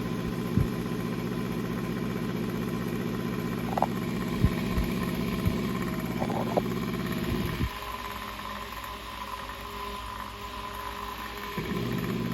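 Antique General Electric 6-inch Type G single-speed table fan running with a steady hum and a few light knocks; the low part of the hum drops away for about four seconds past the middle, then comes back. The fan runs in a state that definitely needs servicing.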